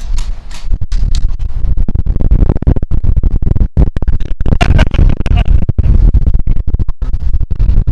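Loud, scratchy rumbling on a body-worn microphone, the buffeting and rubbing of the mic as the player moves, with constant sudden dropouts.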